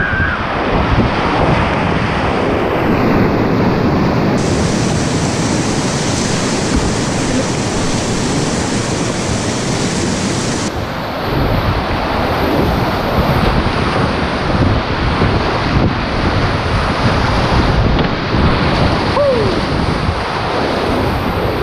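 Loud, steady rushing of a steep whitewater river rapid close to the microphone, with water splashing and wind noise on the microphone as a kayak runs through it.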